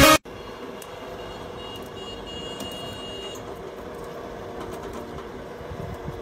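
Background music cuts off abruptly just after the start, leaving steady outdoor background noise with a faint low hum. Between about one and three seconds in, faint high steady tones sound.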